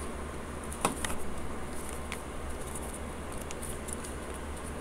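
Folded, tape-wrapped paper being handled and bent by hand: faint rustling with a short crackle about a second in, over a low steady hum.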